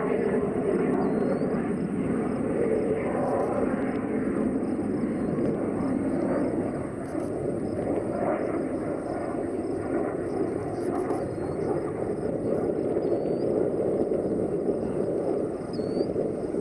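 Steady roar of a vintage jet fighter's turbojet engine passing at a distance overhead.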